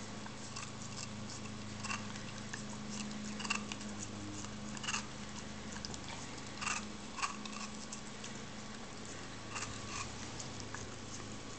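Rat terrier licking and biting at a frozen watermelon popsicle: irregular wet smacks and clicks of its tongue and teeth, over a steady low hum.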